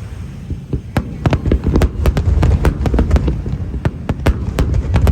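Aerial fireworks going off: low booming rumble with a rapid string of sharp crackling pops that thickens from about a second in.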